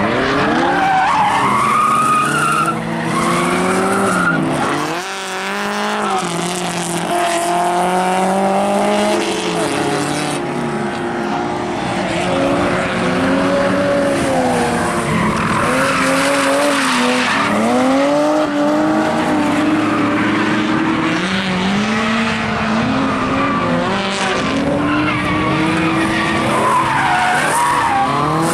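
Drift car's engine revving up and down again and again as it slides, with its tyres squealing.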